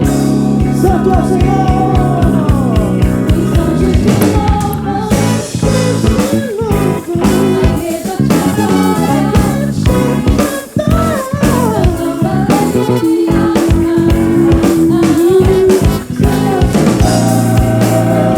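Live soul-gospel band playing an instrumental passage: drum kit, bass and keyboards under a lead melody line that bends in pitch and holds one long note about two-thirds of the way through.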